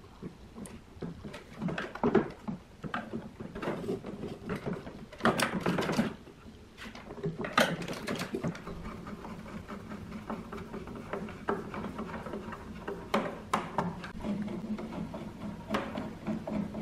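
Metal fan motor being fitted into a plastic extractor-fan housing and its mounting-bracket screws driven with a hand screwdriver: clicks, knocks and scraping of metal on plastic. A low steady hum sits underneath from about halfway.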